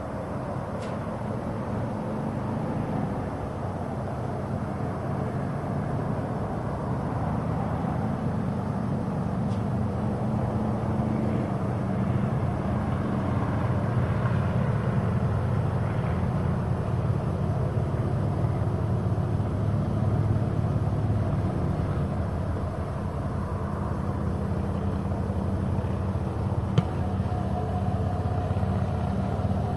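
Steady low outdoor rumble with no clear pitch, with one short sharp knock near the end.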